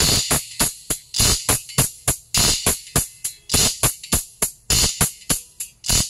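Song with a fast drum-machine beat and hi-hats, about four strikes a second, played through Dainty DT-105 piezo-style tweeters driven by a small power amplifier from a Bluetooth source, with strong, sharp treble.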